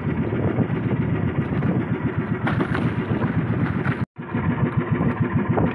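Engine of a small motorized fishing boat running steadily under way, a dense low rumble with a rapid pulse. The sound cuts out for a split second about four seconds in.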